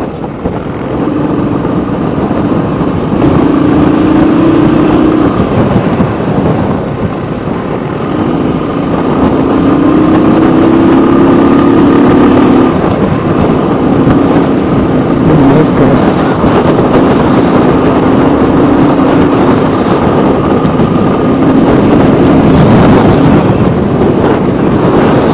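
Motorcycle engine running on the road under heavy wind rush over the microphone. The engine note climbs a few times as the throttle is opened, then settles at cruising speed.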